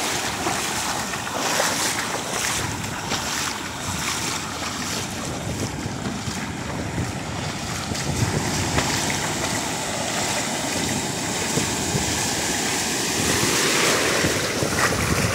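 Ocean surf washing and breaking in the shallows, a steady hiss of foaming water.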